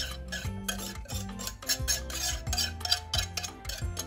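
Wire whisk scraping around the inside of a mixing bowl in repeated strokes as batter is poured out, over background music with a steady beat.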